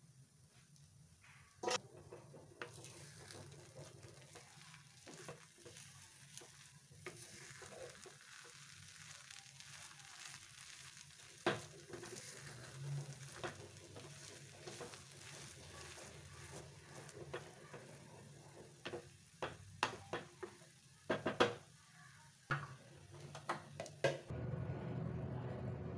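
Wooden spatula stirring and fluffing cooked kodo millet upma in a metal kadai, scraping through the grains over a light sizzle. Several sharp knocks of the spatula on the pan come near the end.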